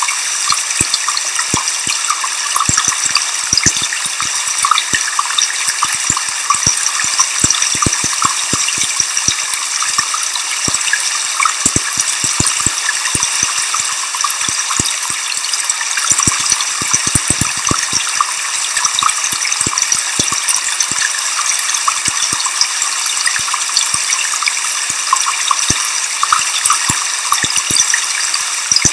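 Waterfall: a steady rushing-water hiss, bright and thin with little low rumble, dotted with many small clicks.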